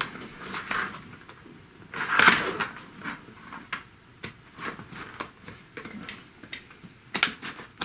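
Plastic clicks and scraping from a dot-matrix printer ribbon cassette being pried open by hand. There is a louder scrape about two seconds in and a few sharp clicks near the end.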